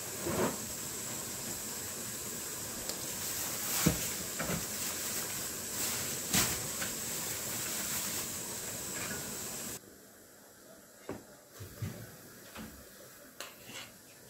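Oil sizzling steadily in a frying pan as vegetables deep-fry, with a wire skimmer clicking against the pan a few times. The sizzle cuts off suddenly about ten seconds in, leaving quiet room sound with a few light knocks.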